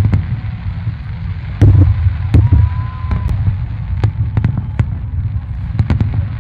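Fireworks display: aerial shells bursting in deep booms amid sharp crackling reports, with the heaviest booms about a second and a half and two and a half seconds in. A faint thin whistle sounds briefly in the middle.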